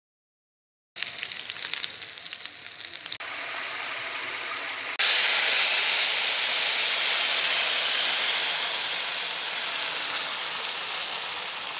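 Vermicelli, potato and turnip frying in hot oil in a pan, sizzling after about a second of silence. About five seconds in, water is poured into the hot pan and the sizzle jumps to a loud, high hiss that slowly fades as the water comes to a bubbling boil.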